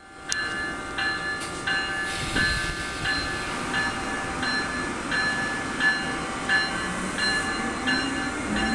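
Siemens ACS-64 electric locomotive's bell ringing steadily, struck about once every 0.7 seconds as the locomotive starts to pull out. Near the end a low whine begins, rising in pitch as it picks up speed.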